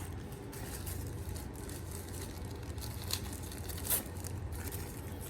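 Plastic packaging and accessories rustling and crinkling as they are handled out of a camera's box, with two sharp clicks about three and four seconds in, over a steady low hum.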